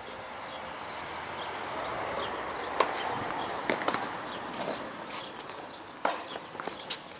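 Tennis ball pops on a hard court: a few sharp, separate hits or bounces a second or two apart. They sit over a steady outdoor hiss with faint high chirps.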